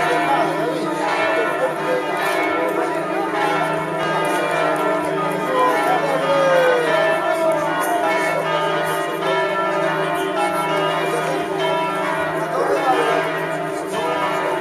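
Church bells pealing, many overlapping tones ringing on without a break, with a few voices beneath.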